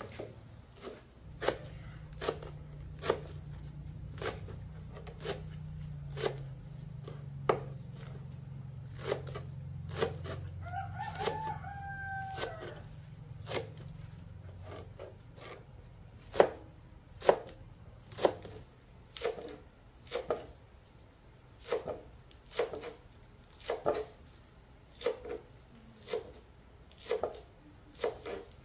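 Steady chopping with a blade on a wooden block, about one stroke a second. A rooster crows once about halfway through. A low hum runs under the first two-thirds and then stops.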